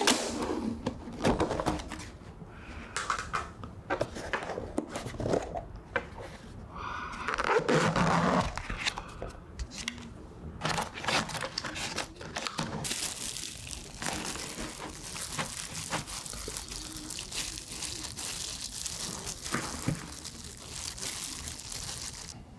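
Plastic takeout packaging being opened: cling film crinkling and tearing as it is peeled off, with clicks and knocks of plastic containers being handled. From about halfway in, a steady crinkly rustling of a disposable plastic glove mixing rice.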